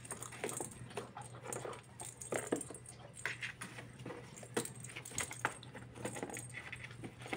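A hollow perforated plastic cat ball with a bell inside, jingling and rattling in irregular bursts as a kitten bats and rolls it, with light knocks of the ball against the cardboard box floor.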